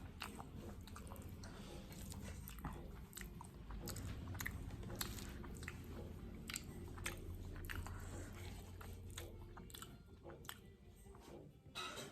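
Close-up biting and chewing of crunchy food, with irregular crisp crunches throughout.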